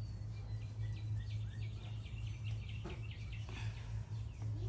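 Faint bird chirping, with a quick twittering series in the middle, over a steady low hum.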